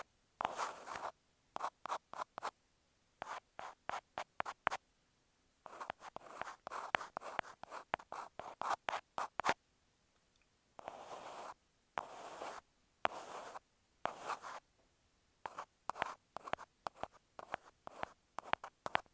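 Ear pick scratching masking tape right at an earphone microphone. It goes in irregular short strokes and quick flicks, with dead-silent gaps between them.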